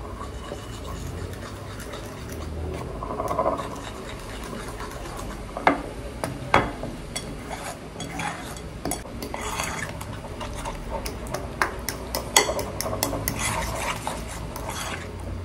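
Metal fork whisking and scraping banana-pancake batter in a ceramic plate, with several sharp clinks of the fork against the plate.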